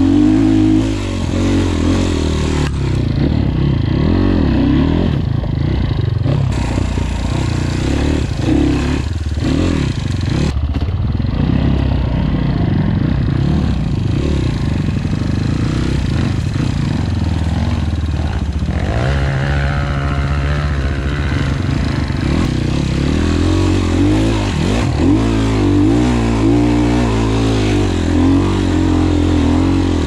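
Enduro dirt bike's engine heard close up from the rider's position while riding a trail, its revs rising and falling with the throttle. Near two-thirds of the way through it revs up in a rising climb.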